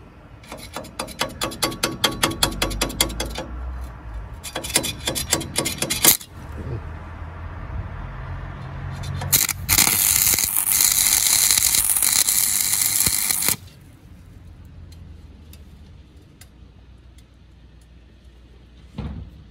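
Stick (SMAW) welding arc on steel: two runs of quick sharp crackles as the electrode is struck and sputters, then about nine seconds in the arc catches and burns with a steady loud crackling hiss for about four seconds before cutting off suddenly.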